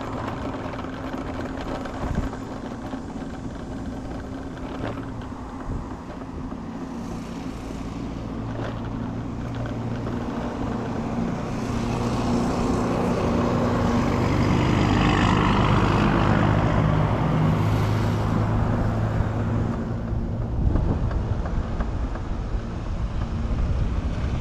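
A motor vehicle passing over a steady low engine hum; its engine and tyre noise builds, is loudest about fifteen seconds in, and then fades.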